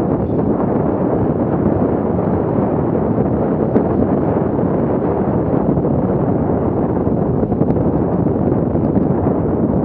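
Steady wind noise buffeting the microphone of a mountain biker's action camera at riding speed, mixed with the rumble of tyres on a dirt trail, with a few faint clicks.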